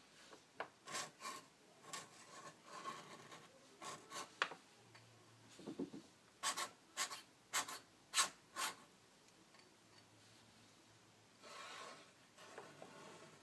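Ink pen scratching across paper in quick, separate strokes, a run of them in the first few seconds and another about halfway through, then one longer stroke near the end.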